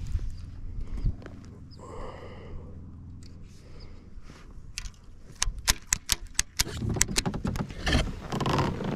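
Fishing rod and baitcasting reel being handled and stowed on a kayak: a brief rasp about two seconds in, then a run of sharp irregular clicks and knocks, with rustling near the end.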